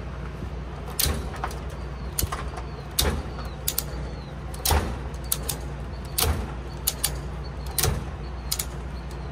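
Ratchet strap buckle worked by hand, its handle clacking in a string of sharp, uneven clicks as the strap is ratcheted tight around a load. A steady low hum runs underneath.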